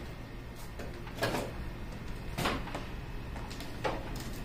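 Three short scraping knocks about a second and a half apart, from plastic and metal parts being handled while a car's tail light and rear trim are taken off, over a steady low hum.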